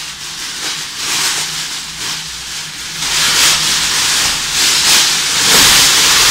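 Foil emergency space blanket crinkling and rustling as it is unfolded and shaken out, louder in the second half.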